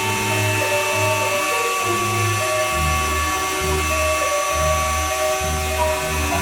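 Background music with a bass line over the steady high whine of a CNC router spindle.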